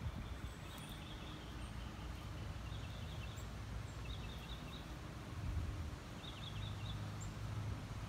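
Backyard ambience: a bird chirping in short runs of quick high notes, four times, over a steady low rumble.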